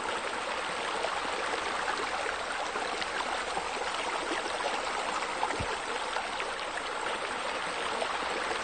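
Steady running, splashing water, like fountain jets spilling into a pool.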